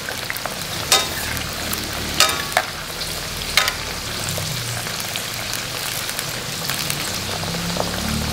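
Winged beans sizzling steadily as they fry in hot oil in a wok. A metal wok spatula stirs them and clanks against the pan about four times in the first four seconds, each strike ringing briefly.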